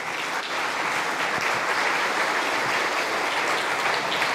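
Audience applauding, many people clapping at once at a steady level.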